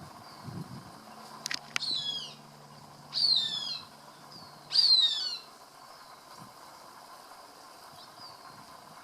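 Cooper's hawk calling while feeding on a rat: three loud, falling calls about a second and a half apart, with two sharp clicks just before the first.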